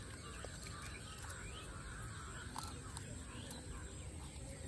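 Faint open-air background with distant birds calling, and a few soft handling clicks as a paper firecracker is pressed into a cut-open tennis ball.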